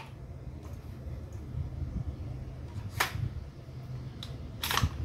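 Handling clicks from a full-metal WE M4A1 PCC gas blowback airsoft rifle being turned in the hands. There are a few faint ticks, then two sharp clicks, one about three seconds in and a slightly longer one near the end.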